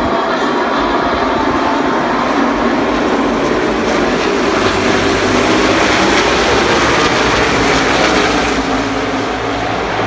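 A pack of NASCAR Cup Series stock cars with V8 engines passing in a tight field, a dense, loud engine noise. It builds to its loudest in the middle and eases a little near the end as the pack moves off down the straight.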